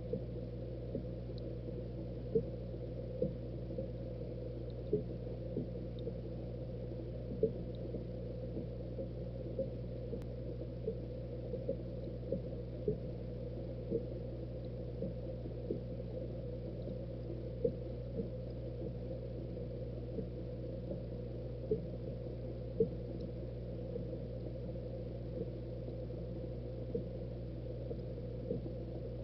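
Aquarium water bubbling, with small irregular pops every half second or so over a steady low hum.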